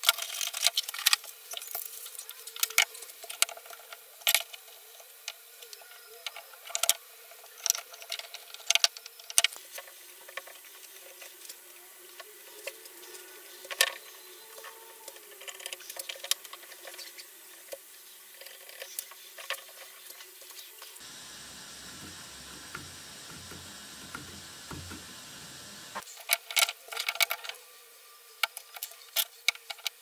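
Handling noise on a workbench: scattered clicks, taps and knocks as a cardboard box is unpacked, an air nailer is set down and small wooden blocks are moved and marked. A few seconds of steady low rumble come in about two-thirds of the way through.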